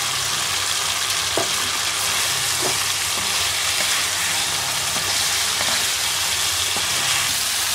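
Snakehead fish pieces sizzling steadily in hot oil and spice paste in a frying pan, with a wooden spatula stirring and turning them a few times.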